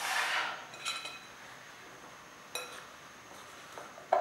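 Metal spoon stirring steamed cassava chips in a glass mixing bowl. A soft rustle of stirring fades at the start, then the spoon clinks against the glass three times, each with a brief ring, spaced well apart.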